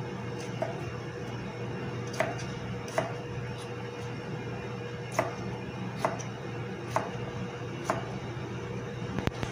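Chef's knife chopping cucumber on a plastic cutting board: single sharp knocks of the blade about once a second, then a quick run of several knocks near the end, over a steady low hum.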